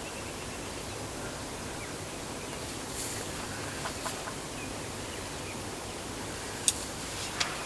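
Wild turkeys clucking now and then over a steady outdoor background hiss, with a few sharp brief clicks; the loudest comes near the end.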